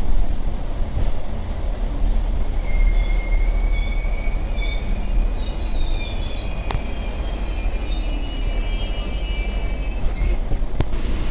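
A train rolling with a steady low rumble, its wheels squealing in several high, wavering tones from about two seconds in until near the end. Two sharp clicks, one midway and one near the end.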